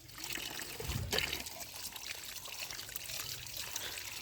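Water pouring and trickling over a muddy plastic toy as it is washed, with a couple of light clicks about a second in.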